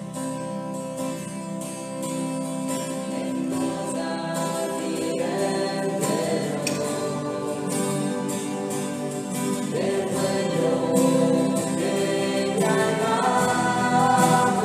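A hymn sung by a group of voices with acoustic guitar accompaniment, growing gradually louder.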